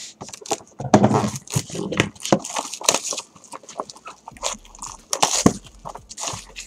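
Plastic shrink wrap crinkling and tearing as a sealed 2017 Topps Archives Signature Series baseball card box is opened by hand, with cardboard rubbing: irregular crackles and rustles.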